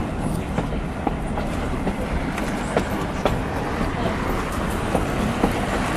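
Passenger train car rolling along the track, heard from on board: a steady low rumble with irregular clicks and knocks from the wheels and the car.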